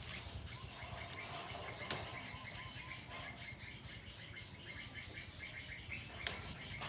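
Small birds chirping in a quick repeating pattern, with a few sharp metal clicks from clip pliers crimping fasteners onto the galvanized wire-mesh lid of a rabbit cage. The loudest clicks come about two seconds in and near the end.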